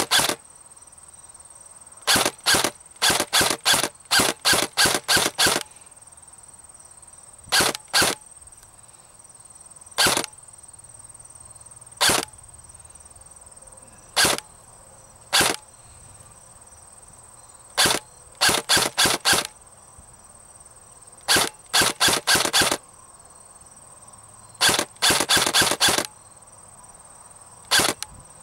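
ICS M16 DMR airsoft electric rifle with an M140 spring firing on semi-auto, heard close up. There are single sharp shots and quick strings of two to about seven shots, in groups a few seconds apart.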